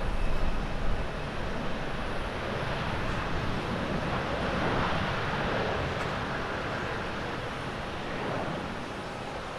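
Japan Airlines Boeing 787-8's GEnx jet engines on the runway roll, apparently in reverse thrust after landing: a steady rushing jet noise, loudest in the first second or so, with a swell in the middle.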